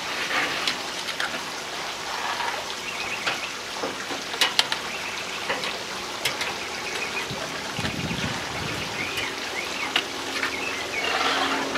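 Sharp metallic clicks of tongs and a sheet pan against a smoker's cooking grate as racks of ribs are laid on, over a steady hiss. A brief low rumble comes about eight seconds in.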